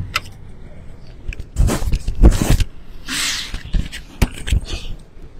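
Rubbing and rustling right on a handheld recording microphone as it is moved through a crowd. The loudest stretch comes about two seconds in, followed by a short hiss and a few sharp clicks.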